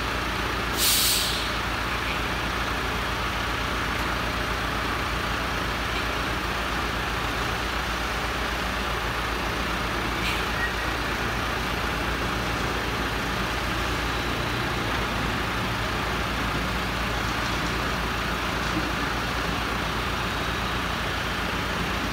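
A heavy vehicle engine running steadily, with a short sharp hiss of air about a second in and a fainter one about ten seconds later.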